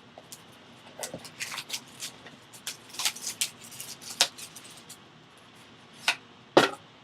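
A sealed trading-card box being opened by hand: a run of short scrapes and clicks of wrapping and cardboard, then two sharper knocks near the end.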